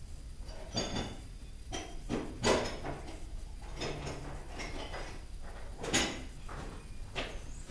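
Metal hand tools clanking and knocking as they are handled, a string of sharp irregular strikes, loudest about two and a half and six seconds in.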